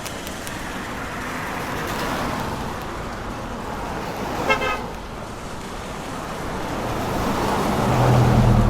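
Street traffic: cars driving past, with a brief car horn toot about halfway through. A vehicle passes close near the end with a low engine hum, the loudest moment.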